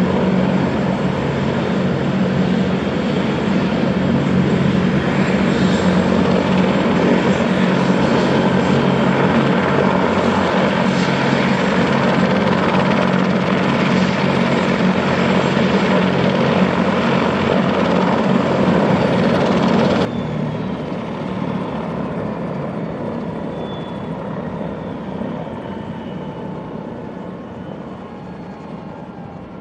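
Bell 412HP helicopter running at ground idle, its twin turboshaft engines and turning main rotor giving a loud, steady hum. About two-thirds of the way through the sound drops suddenly, then fades with a faint falling whine as the engines shut down and spool down.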